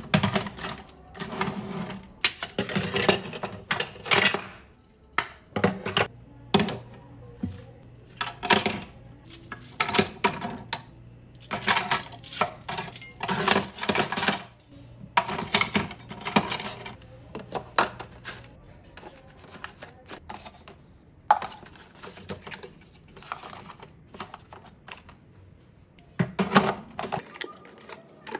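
Ceramic mugs, plates and cooking utensils clinking and rattling as they are set into a wire dish rack and a utensil holder. The clatter comes in quick bursts, busiest in the first half, thinning out later, with one last burst near the end.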